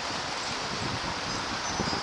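Wind buffeting the microphone in uneven low rumbles over a steady outdoor hiss.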